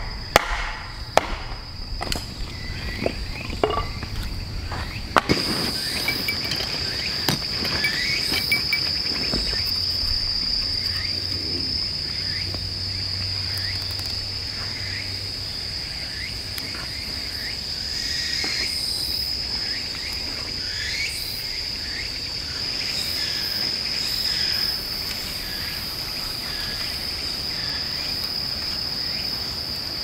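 A few sharp knocks of wood being chopped in the first few seconds, then a knife shaving thin curls off a stick to make a feather stick, in repeated short scraping strokes. A steady high-pitched insect drone runs underneath.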